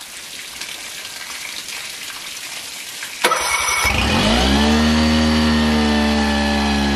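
Mercury 9.9 hp four-stroke outboard cranking briefly and catching a little over three seconds in, its revs flaring then settling into a steady fast idle. This motor keeps running only with the choke on and dies at low idle.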